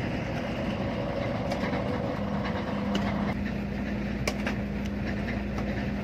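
Combine harvester's engine running steadily, a constant mechanical hum with a few faint clicks.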